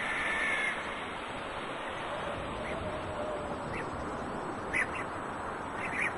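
Bird calls: a few short calls, spaced about a second apart, over a steady outdoor hiss.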